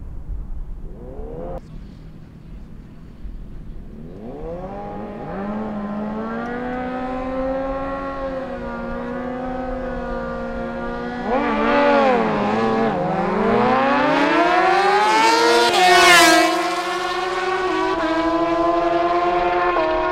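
Two sport motorcycles at a drag strip, engines running at the start line with a brief rev, then launching: a long climb in pitch to the loudest point, a sharp drop in pitch about 16 seconds in, and the engines pulling on steadily after it.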